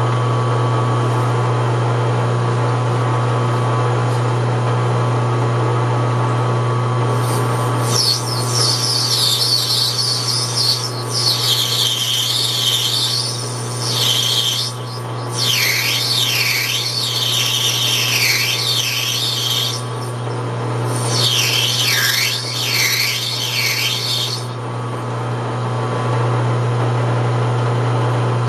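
Metal lathe running with a steady hum while a parting tool cuts into a spinning brass workpiece, the cut giving a high-pitched scraping noise in four stretches, starting about a quarter of the way in and stopping well before the end.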